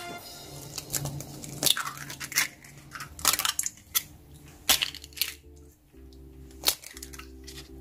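Eggs being cracked open over a glass measuring cup: a series of short, sharp shell cracks and taps, several seconds apart.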